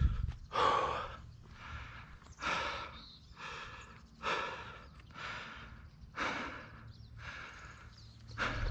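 A mountain biker breathing hard while riding, one heavy exhale about every two seconds over a low steady rumble.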